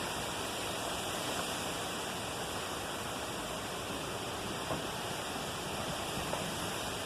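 Steady rushing of a strong windstorm, with a couple of faint knocks about two-thirds of the way in.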